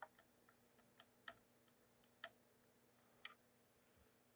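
Faint, irregular clicks and taps of a small plastic cable connector and the 3D printer's plastic display housing being handled while the display cable is fitted, about six clicks over a faint steady hum.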